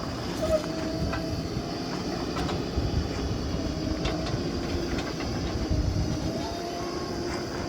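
JCB 3DX backhoe loader's diesel engine running under load, with a hydraulic whine that comes and goes and scattered knocks from the working bucket and arms.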